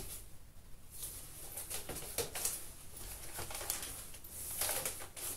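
Vinyl LP records being handled: record jackets slid in and out of the plastic sleeves of a binder album, with rustling of the sleeves and light clicks and taps.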